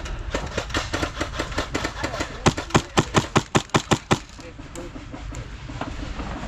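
Airsoft rifle firing a rapid string of sharp shots. Fainter shots come first, then about nine louder ones at roughly five a second from about two and a half seconds in.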